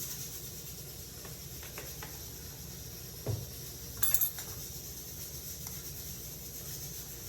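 A metal fork mashing potatoes in a non-stick pot, giving a few soft clicks and a dull knock, then a short cluster of bright clinks against the pot about four seconds in.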